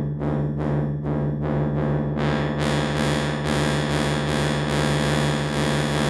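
Cherry Audio PS-3300 software synthesizer (an emulation of the Korg PS-3300) playing its 'Dusty Tubes' brass preset: a held low note with a regular pulsing of about two and a half beats a second. About two seconds in, the filter cutoff is turned up and the sound opens out brighter and hissier.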